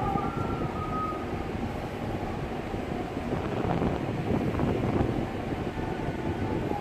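Steady rumbling of wind on the microphone over the low running of a ferry's engine, out on open water.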